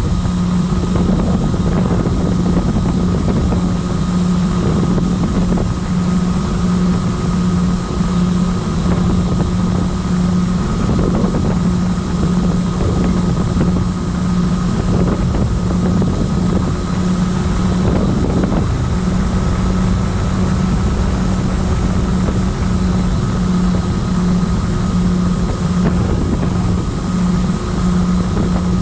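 Twin electric motors and propellers of a My Twin Dream FPV plane running steadily in flight: a strong hum that pulses regularly, with a thin high whine above it.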